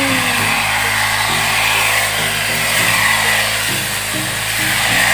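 Engine-driven grass cutter (brush cutter) running steadily, its whine slowly rising and falling as it cuts through weeds, under background music.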